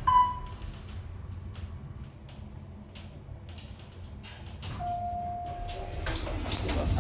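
Small passenger elevator's car chime dings once, loudly and briefly, just after the start over a low running rumble; about five seconds in a steady electronic beep sounds for about a second, and then the car doors slide open near the end.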